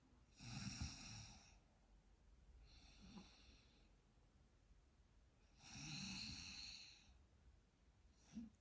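A sleeping woman's faint, slow breathing: three breaths about two and a half to three seconds apart, the first and last louder with a light snore, the middle one softer.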